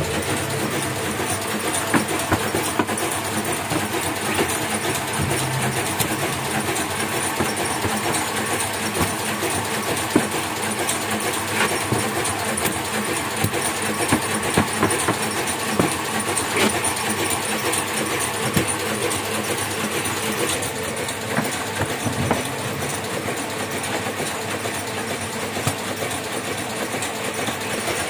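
Small sheet-fed offset printing press running: a steady mechanical clatter with frequent short clicks.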